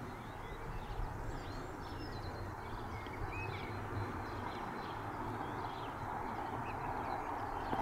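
Small birds chirping, many short calls, over a steady low outdoor rumble and hiss that grows slightly louder toward the end.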